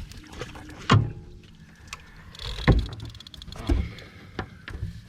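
Four dull thumps and knocks on a boat, spaced irregularly over a few seconds, the loudest about halfway through, with a short rush of noise just before it and a low steady rumble underneath.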